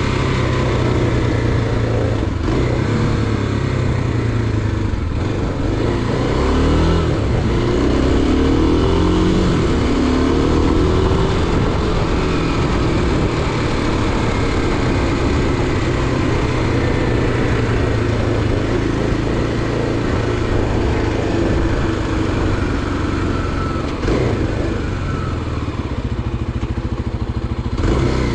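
A motor vehicle's engine running on the move, its pitch shifting up and down as the speed changes, over a steady rush of road and wind noise.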